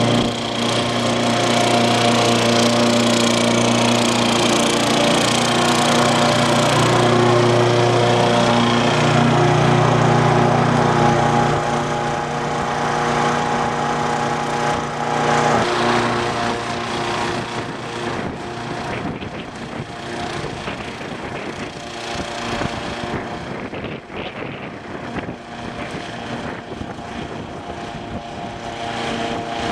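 Lawnmower engine of a remote-controlled mower running steadily. It is loudest for the first dozen seconds, then fainter and more uneven.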